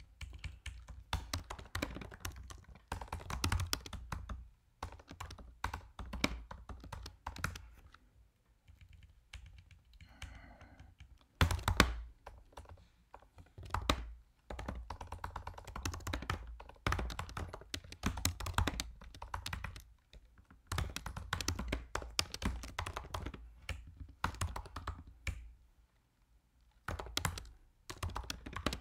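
Fast typing on a computer keyboard, in bursts of key clicks with brief pauses, and one louder thump about twelve seconds in.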